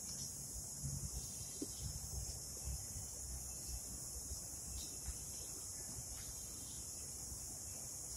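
Steady, high-pitched chorus of insects in the park's trees and shrubs, over a low, uneven rumble.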